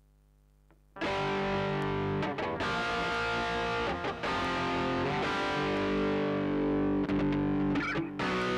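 Electric guitar played through a Mooer GE100 multi-effects pedal on its METAL preset, heavily distorted, with sustained notes and chords cut off sharply between phrases. It comes in suddenly about a second in, after a moment of faint hum.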